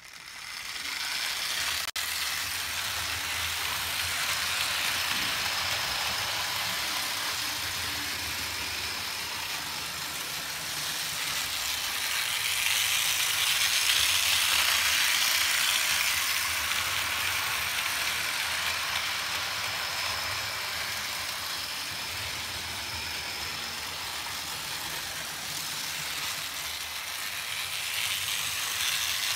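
Märklin 3015 H0 model SBB 'Crocodile' electric locomotive pulling a freight train on three-rail AC track: a steady mechanical whir of the motor, gears and running wheels. It starts up within the first second and is loudest about halfway through as the locomotive passes closest.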